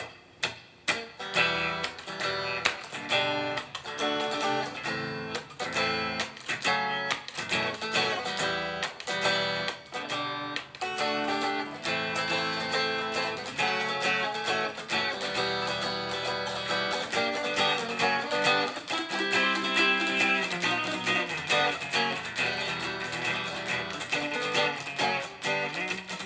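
Guitar strummed in a steady rhythmic pattern of down and up strokes broken by short muted chops.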